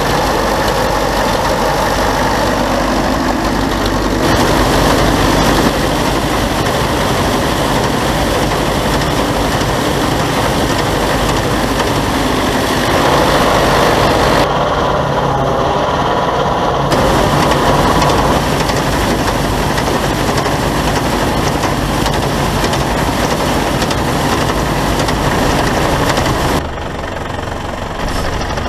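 Vintage combine harvester at work: its engine and threshing machinery run as a loud, steady mechanical din. The tone shifts abruptly a few times.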